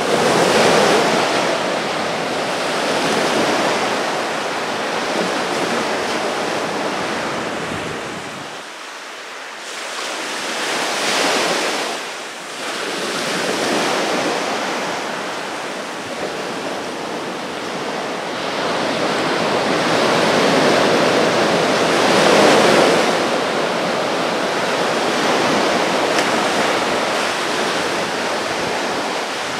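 Small surf breaking and washing up a sandy beach, a steady rush of water that swells and eases with each wave, with a quieter lull about nine seconds in.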